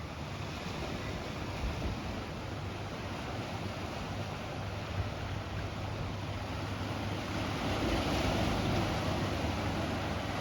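Ocean surf washing on the shore, a steady rush that swells louder about eight seconds in.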